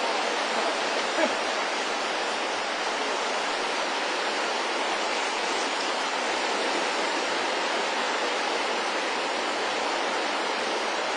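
Steady rushing of a fast, swollen river running over rapids.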